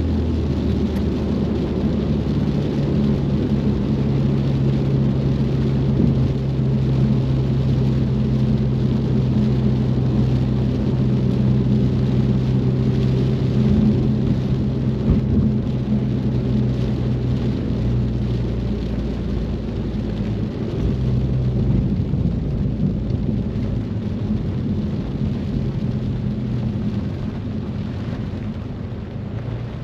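Ford Mustang driving on a wet road: a steady engine hum holding one pitch over the hiss of tyres on wet pavement and rain, the engine note dropping after about two-thirds of the way through and the whole sound easing off a little near the end.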